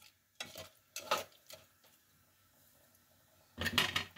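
A metal spoon scraping and knocking against a pot while chicken masala is stirred: a few short scrapes in the first second and a half, a quiet pause, then more clatter near the end.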